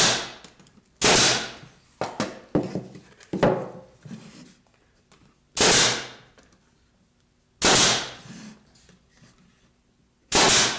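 Pneumatic brad nailer firing brads into pine blocks, tacking them to a plywood fence: about five sharp shots at irregular spacing, each with a short hiss of air, with a few lighter knocks between the second and third shots.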